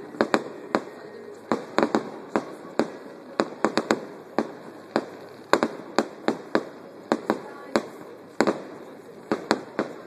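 Aerial fireworks shells bursting in a rapid, irregular series of sharp bangs, several a second at times, over a steady background hiss.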